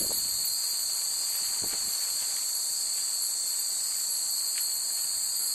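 A dense chorus of summer insects shrilling, high-pitched and steady without a break.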